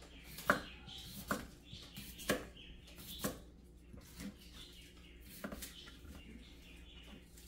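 Chef's knife slicing a raw red potato on a plastic cutting board, with a sharp knock as each cut meets the board, about once a second. The knocks are fainter in the second half.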